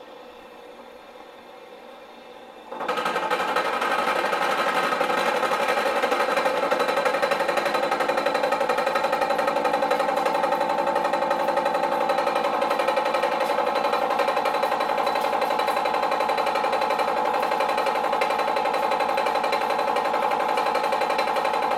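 Carbide insert face mill on a Bridgeport milling machine taking a facing pass across a steel block. Just under three seconds in, the cutter bites into the steel and the sound jumps to a loud, steady, pitched cutting noise that holds evenly.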